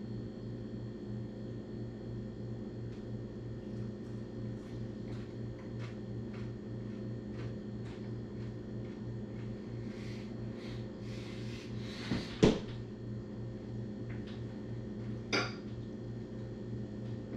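Dishes and cutlery clattering at a dining table over a steady low room hum, with faint light clicks throughout. A louder clatter builds about ten seconds in and ends in a sharp clink, and a second sharp clink comes a few seconds later.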